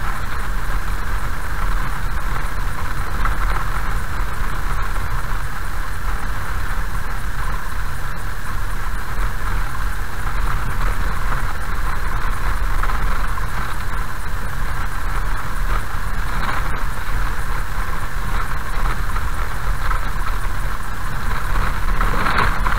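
A car driving slowly on a gravel road, heard from inside the cabin: a steady rumble of tyres on gravel mixed with engine noise.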